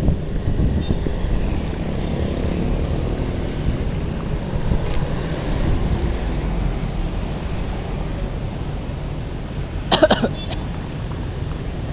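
Street traffic: a steady rumble of passing cars and motorbikes, with a brief sharp clatter about ten seconds in.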